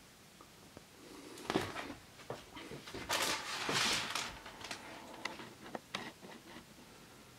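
Handling noise close to the microphone: a scatter of light clicks and knocks, with a longer rustle about three to four seconds in, as a sheet is put down and the camera is reached for.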